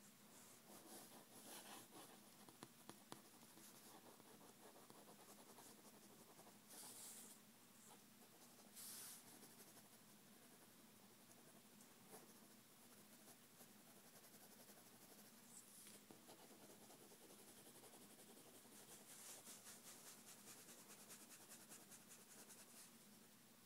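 Faint scratching of a pen on paper, shading a drawing in quick repeated strokes, with a few short louder scratchy passages.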